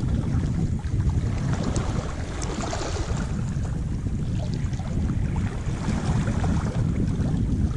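Wind buffeting the camera microphone as a steady low rumble, over sea water washing across the reef rocks, with a few faint ticks.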